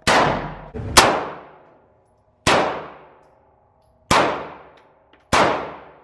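Handgun shots echoing in an indoor shooting range: five loud shots, one every second or so, with a fainter shot just before the second. Each one rings out and dies away in the range.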